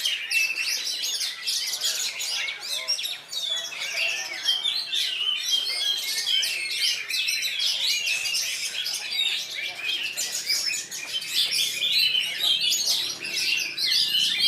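Many caged oriental magpie-robins (kacer) singing at once: a dense, unbroken tangle of overlapping high chirps, trills and warbles.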